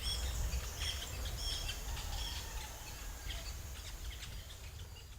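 Wild forest birds chirping in many short, high calls over a steady low rumble, the whole slowly fading down.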